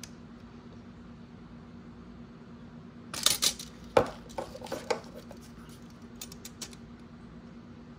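Handling noises from a plastic power adapter and a metal tape measure moved about on a table: a short scraping rustle about three seconds in, a sharp click about a second later, then a few light ticks, over a steady low hum.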